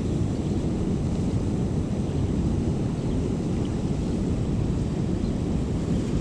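Steady low rush of water pouring through the dam into the river, an even roar without breaks.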